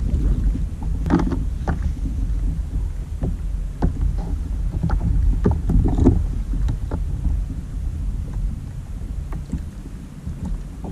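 Wind rumbling on the microphone over open sea, with scattered small clicks and knocks as the catch and tackle are handled on a plastic kayak.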